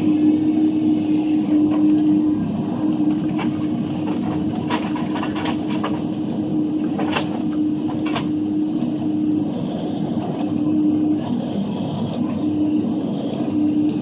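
Log processor with a Waratah 622B harvester head at work: its diesel engine and hydraulics run with a steady drone and a constant hum. Several sharp knocks come between about three and eight seconds in as the head handles the log.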